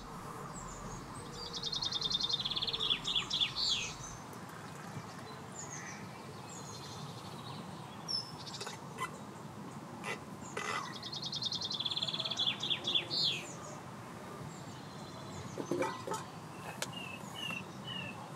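Songbirds singing over a low steady outdoor background: a quick trilled song phrase ending in a flourish, given twice, and short repeated chirps near the end. A few light clicks and knocks in between.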